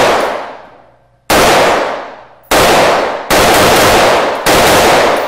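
AR-style rifle fired in an indoor shooting range: four single shots about a second apart, each followed by a long echo that dies away, with the echo of a shot fired just before also fading at the start.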